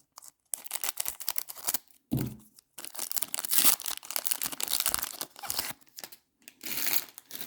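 Crinkling and tearing of a baseball card pack's wrapper being pulled open by hand, in a string of short bursts with brief pauses. The pack is tightly sealed and hard to get into.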